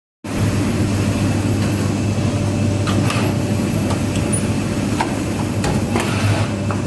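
Automatic pocket welting sewing machine running: a steady low hum with irregular sharp clicks and knocks.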